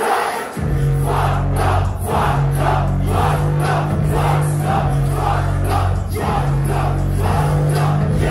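Live music at a concert, played loud through the PA with a heavy bass and a steady beat of about two pulses a second, the crowd shouting along. The music comes in about half a second in.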